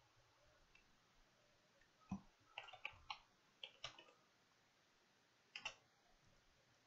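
Soft clicks of computer keyboard keys being typed: a quick run of keystrokes from about two to four seconds in, then a brief pair of clicks later on.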